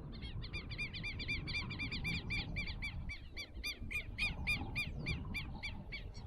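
A bird calling in a long rapid series of short, repeated arched notes, about four a second, that slow slightly toward the end. Under it runs a steady low rumble.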